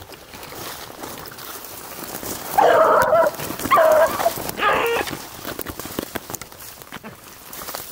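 A beagle bays three times, about a second apart, starting about two and a half seconds in. It is giving voice while trailing rabbit scent with its nose to the ground.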